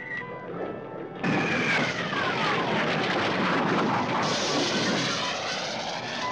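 Cartoon sound effect of a jet-like roar that cuts in suddenly about a second in, with a whistle sliding down in pitch over the next second and a half. The roar turns brighter and hissier about four seconds in.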